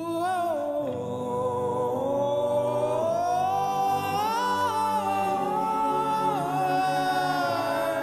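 Soundtrack music: a single wordless voice singing long, slowly gliding notes over a steady low backing.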